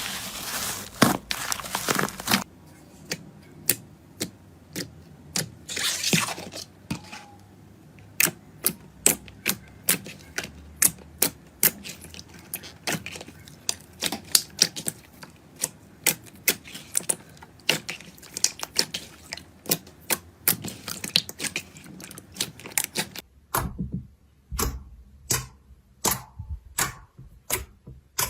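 Slime being pressed and poked, giving quick sharp pops and clicks, about two or three a second, with a crackling stretch near the start.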